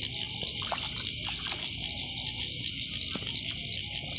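Steady high-pitched chorus of night insects, an unbroken trill, with a few faint rustles and clicks beneath it.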